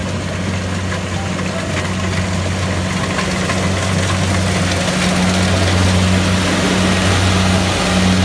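Rice combine harvester running as it cuts and threshes: a steady low engine hum over a broad mechanical rush, growing a little louder in the second half.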